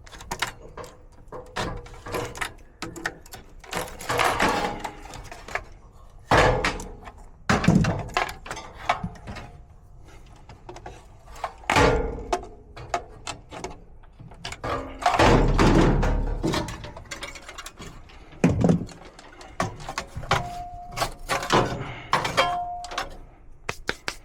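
Sheet-metal furnace cabinet and blower parts being handled while the blower motor is disconnected and removed: irregular knocks, clanks and thunks, heavier thuds about six, eight and twelve seconds in, and a longer clatter around fifteen seconds.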